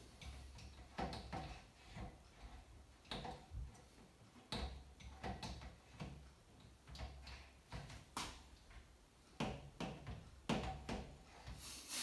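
Clear plastic fridge door shelf clicking and knocking against the door's inner liner as it is pushed and angled at its slots without seating. Faint irregular taps and clicks, a dozen or so, scattered throughout.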